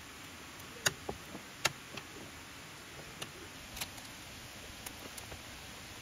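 A few sharp clicks and taps as a mesh insect screen is handled and fitted over a car's open rear hatch, over a steady faint hiss. The two loudest clicks come about a second and a second and a half in, followed by softer ticks.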